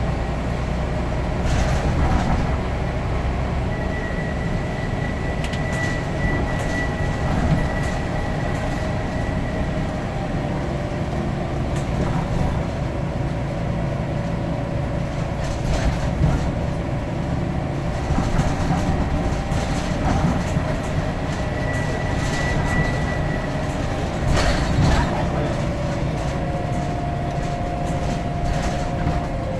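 Scania N94UD double-decker bus running along, its engine and drivetrain making a steady low rumble with whining tones that slowly shift in pitch as the speed changes. Occasional short knocks and rattles come through.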